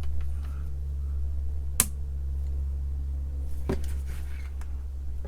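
Two sharp small clicks of tools or parts being handled at a soldering bench, one about two seconds in and a softer one nearly two seconds later, over a steady low electrical hum.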